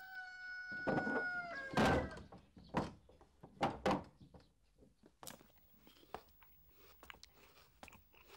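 A steady, held pitched call that stops about a second and a half in, followed by several separate sharp knocks.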